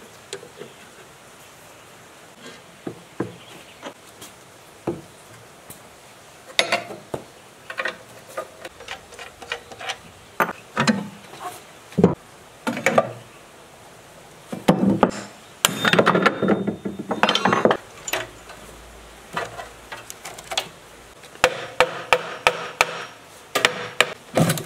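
Hand tools working on a rusty steel generator housing: scattered metal clanks and knocks as bolts are undone with a socket wrench and parts are handled. Near the end comes a quick run of about ten hammer blows on the end cover, knocking it loose for disassembly.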